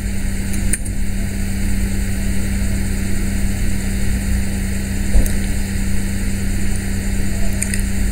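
A steady low hum over a constant background noise, with no change in pitch or level.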